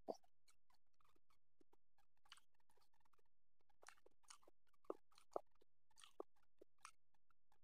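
Faint mouth sounds of a person eating rice and curry with his fingers: scattered chewing clicks and smacks, with a few sharper clicks about five seconds in.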